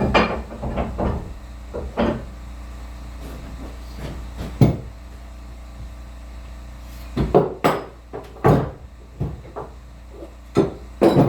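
Irregular metal clunks and knocks from adjusting the articulating work rest on a belt grinder, about a dozen in all, spaced unevenly. The loudest come about halfway through and near the end.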